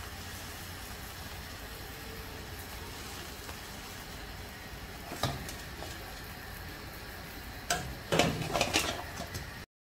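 Metal spatula knocking and scraping against a frying pan while stuffed flatbread fries on a gas hob: one sharp knock about five seconds in, then a cluster of louder clatters near the end, over a steady low hum.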